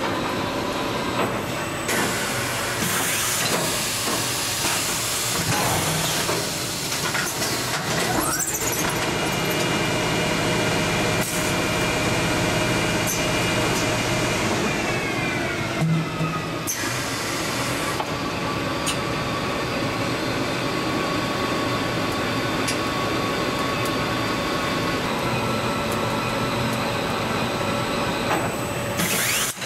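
Automatic roll winder running, winding plastic film onto a core: a steady mechanical hum with hiss and several steady whining tones. About halfway through, a group of the tones falls in pitch, followed by a short knock.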